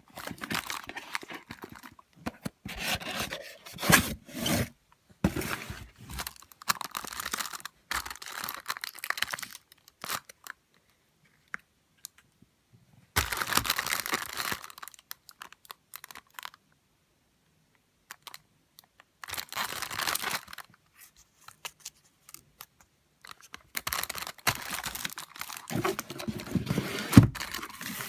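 Rustling, crinkling and tearing of packaging as fireworks are handled, coming in several bursts separated by silent pauses.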